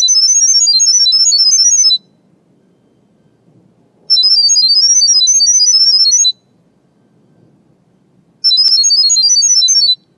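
Smartphone speaker playing a Wi-Fi camera's sound-wave pairing signal: rapid, high-pitched beeping tones that send the Wi-Fi password to the camera. It comes in three bursts of about two seconds, with pauses between them.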